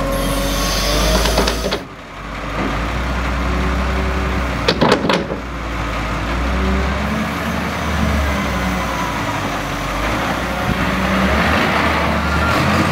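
Diesel engines of a Volvo wheel loader and a New Holland tractor running under load, with a wavering whine in the first couple of seconds. Around five seconds in comes a short burst of knocks and clatter as the loader bucket tips manure into the steel spreader box.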